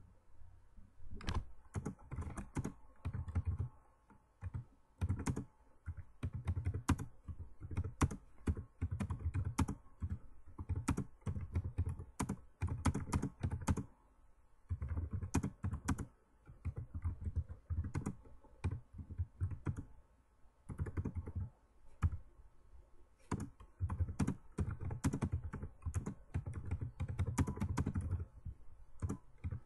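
Typing on a computer keyboard: rapid runs of keystroke clicks in bursts, broken by short pauses.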